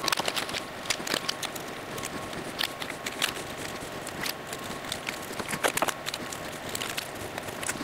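Blue painter's tape crackling and rustling in irregular clicks as it is laid by hand over a 3D-printed plastic mould and pressed down.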